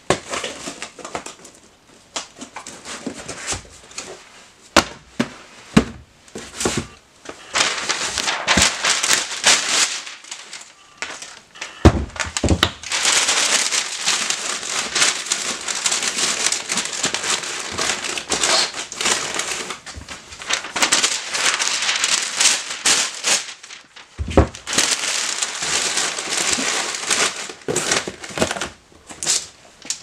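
Brown kraft packing paper being crumpled and stuffed into a cardboard shipping box: a long run of crinkling and rustling with sharp crackles, broken by a couple of dull thumps from the box being handled.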